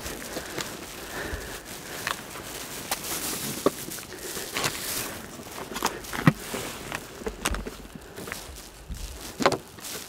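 Irregular rustling, clicks and knocks as a fishing keep net and gear are handled at the edge of a fishing platform. The loudest knocks come at about three and a half seconds, about six seconds and near the end.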